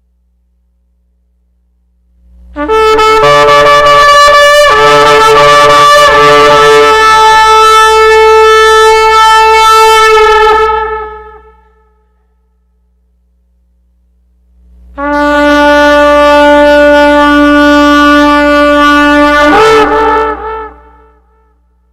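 Shofar blown in two long, steady blasts, the first about eight seconds and the second about six, the second wavering and breaking just before it stops.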